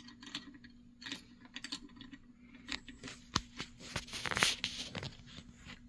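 Small handling noises of fingers working fine stripped wire leads and a small tape label: scattered faint clicks and rustles, with a short crackly rustle a little past four seconds in.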